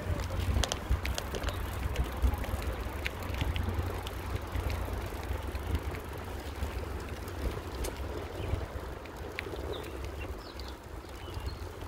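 Bicycle rolling along a paved path: steady low wind rumble on the microphone over tyre noise, with scattered clicks and rattles from the bike. A few faint high chirps near the end.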